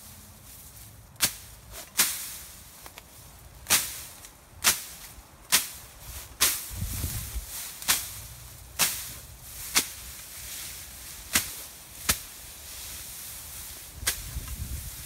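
Machete blade chopping through tall grass stems: about a dozen sharp strikes at uneven spacing, roughly one a second.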